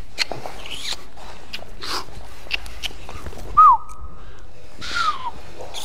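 Two short, high, falling 'woo' whoops from a dancer's voice, about a second apart in the second half, with soft swishes of movement before them.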